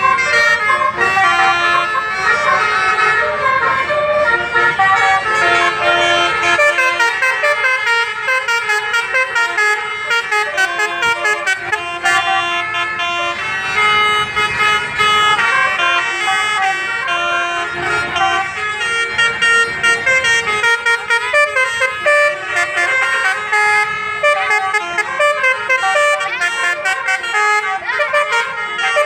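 Basuri multi-tone bus horn playing a 'telolet' melody, its notes stepping quickly up and down, with a low vehicle rumble underneath.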